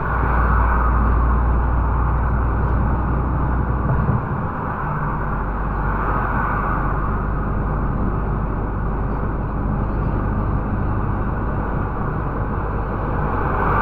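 Steady driving noise inside a MAN TGX 470 truck cab: the six-cylinder diesel's low rumble with road and wind noise. The rumble is heaviest for the first four seconds or so and eases slightly after that.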